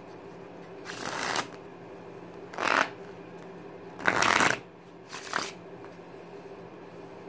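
A deck of playing cards shuffled and riffled in the hands: four short, crisp rustling bursts, the loudest and longest about four seconds in.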